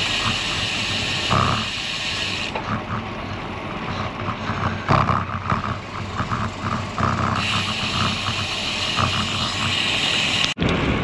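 Wind rushing over the microphone and the road noise of a bicycle rolling along, with a steady high buzz that is there for the first couple of seconds and again for the last few.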